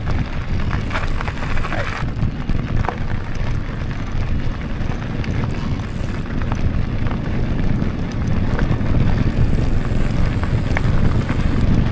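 Wind rumbling on the microphone of a moving mountain bike, over tyre noise on the trail, with a few small clicks and rattles.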